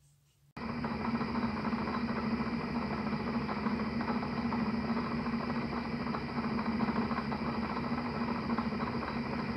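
Watch cleaning machine running: its small electric motor hums steadily while spinning a basket in a jar of liquid. The sound cuts in abruptly about half a second in.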